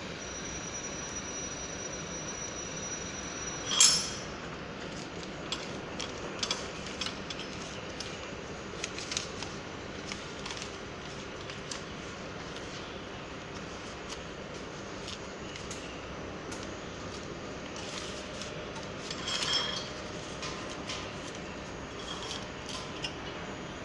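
Plastic packaging film crackling and rustling as it is pulled by hand over the rollers of a vertical packing machine, with scattered clicks of metal parts over a steady background hum. A sharp crackle about four seconds in is the loudest sound, with another burst of crackling near the end.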